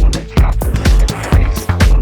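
Electronic dance music with a steady four-on-the-floor kick drum, snare hits and a bass line.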